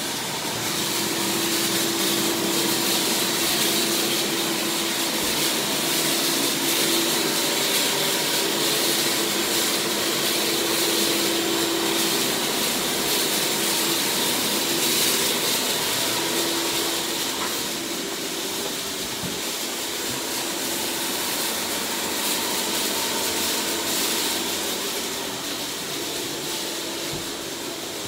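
Vacuum cleaner running steadily through a long hose, a loud whooshing hiss with a constant low hum that eases off slightly for a few seconds past the middle.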